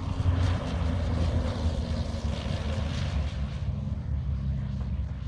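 Small propeller airplane's engine running, a low drone with propeller noise, loudest in the first few seconds and easing off after.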